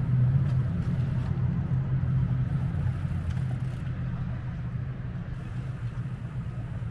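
A motor vehicle running steadily, with a low engine hum and rumble that eases off slightly over the seconds.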